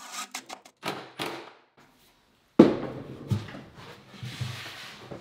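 A plywood cabinet box being tipped and shifted on a workbench: a sharp hollow thump about two and a half seconds in, then lighter knocks and scraping of wood on wood. A few short taps come before it.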